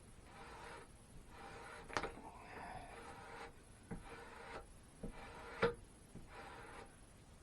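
A steel chisel worked in repeated scraping strokes, about one a second, with a few sharp clicks between them, the loudest a little past halfway.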